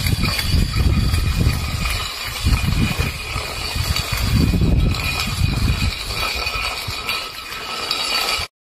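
A metal food bowl scraping across concrete as a puppy shoves it along with its head inside, the bowl ringing with a steady high tone over a low rumble that swells and fades. The sound cuts off abruptly near the end.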